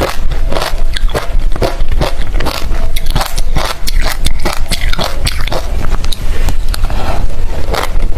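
Close-miked chewing of hard refrozen crushed ice: loud, rapid, irregular crunching and cracking as the pieces break between the teeth.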